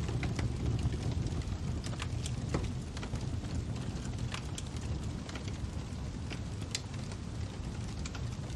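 Fire crackling: a low steady rumble with irregular sharp pops and snaps scattered through it.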